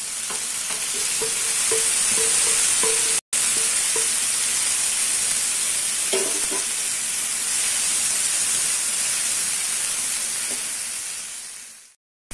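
Chopped tomatoes sizzling in hot oil in a non-stick kadai with sautéed onions, while a spatula stirs them in. The sizzle drops out briefly about three seconds in and fades away near the end.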